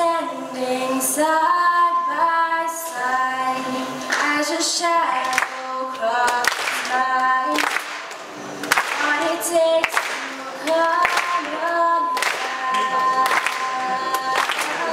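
A girl singing solo, accompanying herself on a strummed acoustic guitar.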